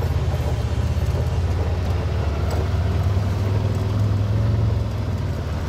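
Vehicle engine running steadily as it drives across a field, heard from the driver's seat: a low drone with a fast, even pulse.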